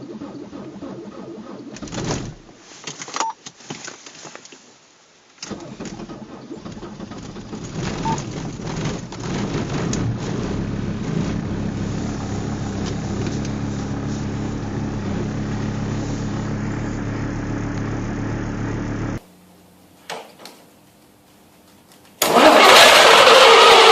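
A big engine turning over and catching, with a few sharp knocks at first, then building up and settling into a steady run. It cuts off suddenly, and after a short pause a second engine starts much louder near the end.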